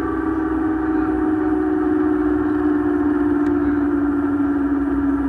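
Light turbine helicopter running on the ground after landing, a steady whine that slowly falls in pitch over the engine's low rumble.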